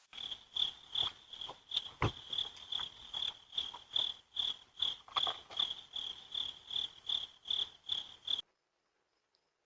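Cricket chirping steadily, about three chirps a second, with one sharp knock about two seconds in; the chirping cuts off suddenly near the end.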